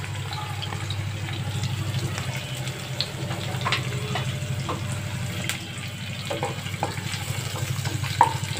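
Sliced onions, green chillies and panch phoron seeds sizzling in hot oil in a nonstick kadai, with scattered pops and crackles over a steady low hum. Near the end a wooden spatula starts stirring them, with a sharp click against the pan.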